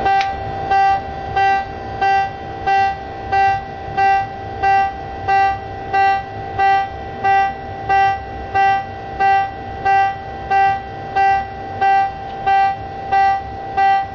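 USS Dolphin submarine's general alarm sounding: a loud pitched tone with strong overtones, pulsing evenly about three times every two seconds.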